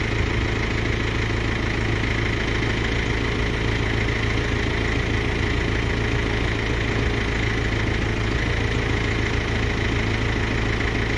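Engine running steadily at idle, powering the hydraulics of a Palfinger PC2300 crane as its boom is drawn in.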